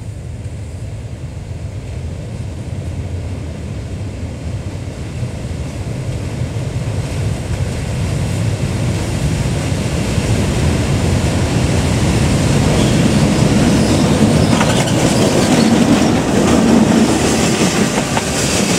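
Diesel locomotive hauling a freight train approaches, its engine and wheels growing steadily louder. In the last several seconds the boxcars pass close by, with wheels clattering over the rail joints.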